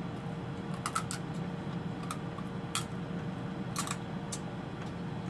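Scattered small clicks and cracks of cooked crab shells being broken and picked apart by hand, a few of them in quick runs, over a steady low hum.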